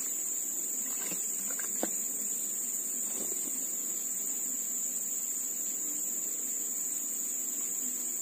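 Steady high-pitched insect chorus, one unbroken shrill tone, with a few faint clicks from handling near the start.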